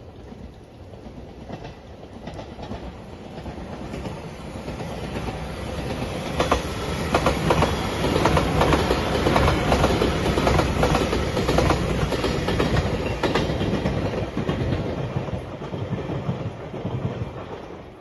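Five-car Shiokaze limited express electric train approaching and passing close by, its wheels clicking rapidly over the rail joints. It is loudest as the cars go past, then fades away.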